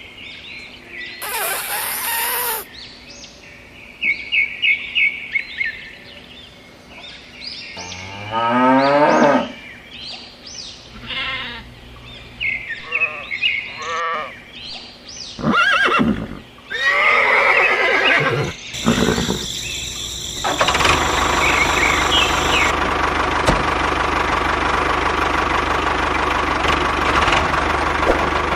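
A string of short animal calls and chirps, including a rising call, then, about two-thirds of the way through, a steady engine starts running and keeps going.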